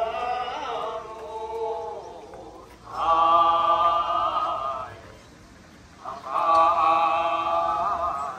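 Three long held chant-like tones of steady pitch, each about two seconds, with short pauses between them and a slight waver at the end of the last.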